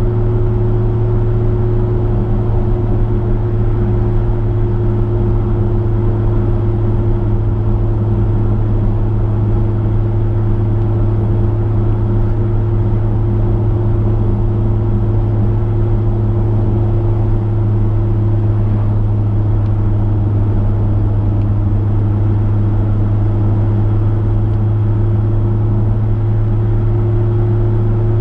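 Chevrolet V8 engine and road noise at a steady cruise, heard from inside the car: an even, unchanging low drone.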